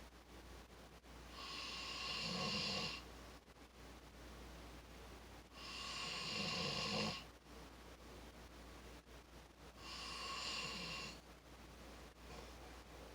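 Snoring: three long snores about four seconds apart, each lasting about a second and a half, with quieter stretches between.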